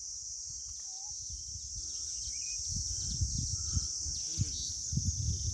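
Steady high-pitched insect chorus, with a few faint bird chirps. Irregular low rumbles on the microphone grow stronger in the second half.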